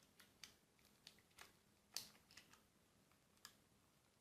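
Near silence with about eight faint, scattered clicks and taps, the clearest about two seconds in: small parts of a wooden stick, nut and phone being handled as they are fitted together.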